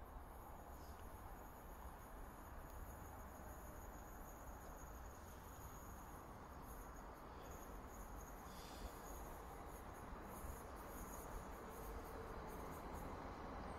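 Train approaching from a distance: a faint low rumble that grows slowly louder, with a thin steady high-pitched whine over it.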